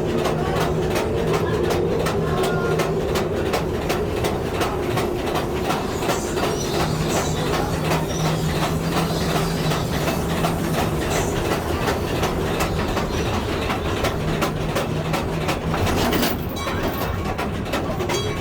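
Mine-ride train cars rolling along their track: a steady rumble and hum with rapid clickety-clack of the wheels.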